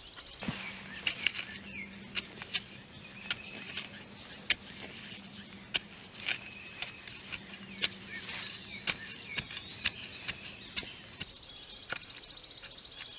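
Hand garden cultivator chopping into grassy sod and soil, a series of irregular sharp knocks as the tines strike and pull up the turf. Birds chirp throughout.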